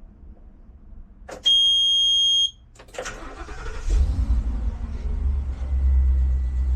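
A single long electronic warning beep lasting about a second, then the bus's Ford 7.3 L 'Godzilla' gasoline V8 cranks and fires about three seconds in and settles into a steady idle.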